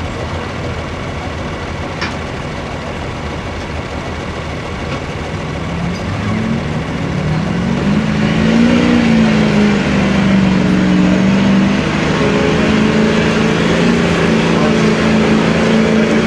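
Duramax turbo-diesel V8 of a 2003 Chevrolet pickup, running at first, then building revs from about six seconds in and running hard under load as it pulls the sled, its pitch rising and wavering.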